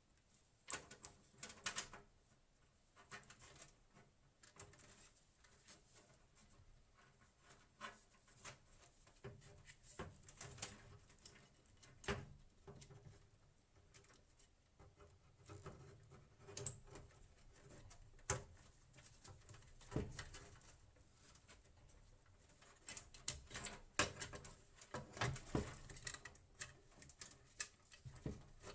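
Irregular small clicks, taps and rustles of hands handling computer hardware, denser near the end, over a faint steady hum.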